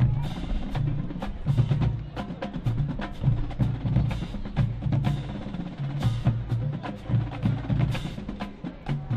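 Marching band drumline playing a cadence: rapid sharp snare drum strikes over repeated low drum notes, steady throughout.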